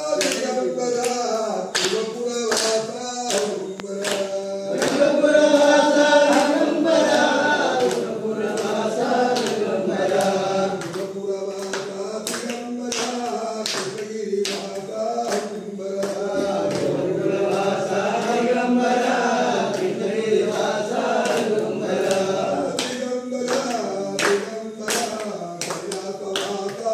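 A group of men singing a devotional chant together, with a steady rhythm of hand claps keeping the beat.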